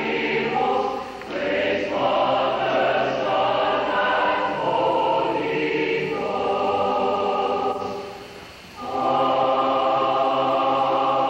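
Madrigal choir of mixed voices singing, with a short break about eight seconds in before a held chord.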